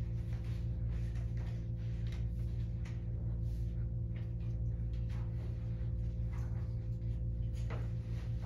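A steady, low electrical hum, with a few faint ticks and small rustles over it.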